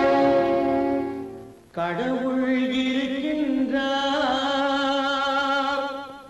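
Orchestral prelude of an old Tamil film song: a long held chord that fades out under two seconds in, then after a brief gap a second long held chord with wavering upper notes, fading away near the end.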